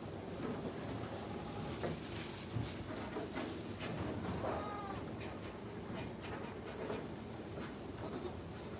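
A young goat kid bleating once, a short call that bends up and down in pitch, about four and a half seconds in, over steady background noise and scattered light clicks.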